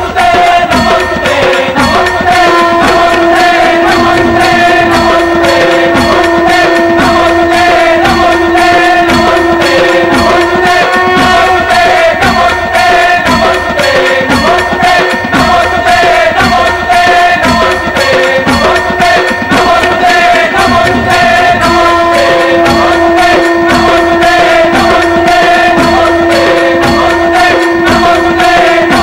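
Devotional Indian music: a fast, steady hand-drum beat under held notes, with a long sustained tone in the middle register for much of the time.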